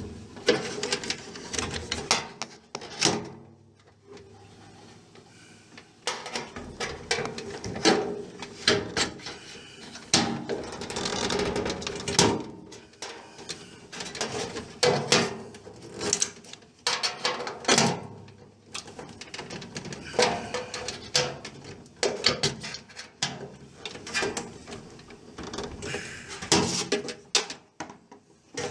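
Flat-head screwdriver prying at the clamps of a microwave's sheet-metal outer cover, and the cover being pushed and shifted. Irregular metallic clicks, knocks and scrapes, with a quieter pause about four seconds in.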